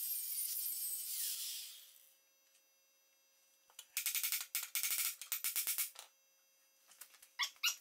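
Angle grinder cutting through the steel bracket of an engine stand, winding down about two seconds in. After a short pause, a quick run of sharp metal knocks as the bracket is struck with a hammer, and a few more clinks near the end.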